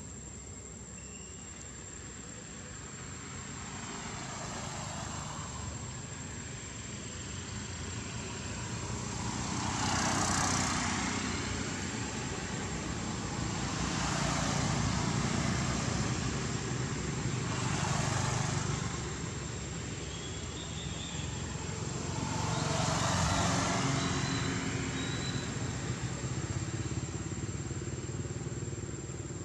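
Motor vehicles passing on a road one after another: about five swells of engine and tyre noise that build and fade away, with a low engine hum in the middle stretch.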